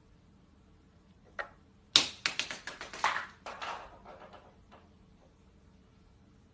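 A single sharp tap, then about three seconds of quick, irregular clicking and clattering, loudest at its start.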